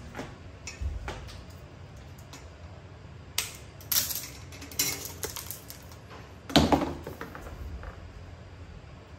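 Clatter of a bicycle wheel being handled: a few sharp metallic clicks and knocks, the loudest about two-thirds of the way through.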